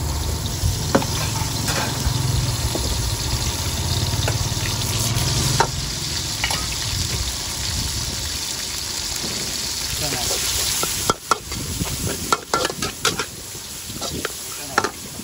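Oil sizzling and frying in a wok as sliced raw meat cooks, with a steady hiss and a low rumble in the first half. In the last few seconds a metal spatula scrapes and clanks repeatedly against the wok as the meat is stirred.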